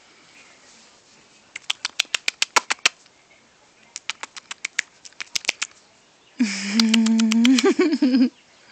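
Rapid wet sucking clicks made with the mouth, in two runs of about ten clicks each. Then comes a steady held vocal tone of about two seconds with more clicks over it, wobbling just before it stops.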